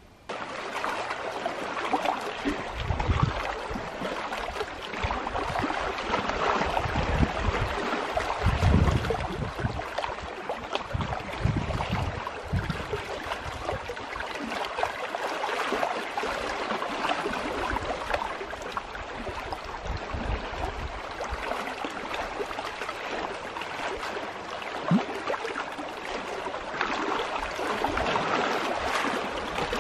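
Small lake waves lapping and splashing against shoreline rocks, a steady wash of water with irregular low thuds in the first half.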